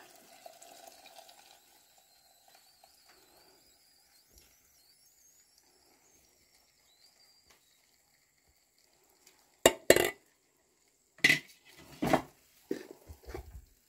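A thin stream of hot oil pouring faintly into a plastic jar of malagueta peppers for the first couple of seconds. Near the end come several loud clinks and knocks of kitchenware being handled.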